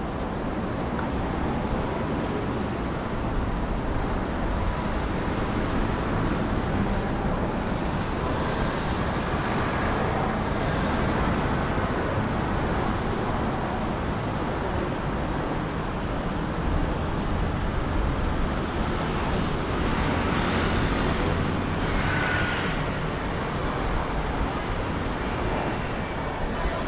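City street traffic noise: a steady rumble of road traffic, with vehicles passing close by about nine seconds in and again around twenty seconds in.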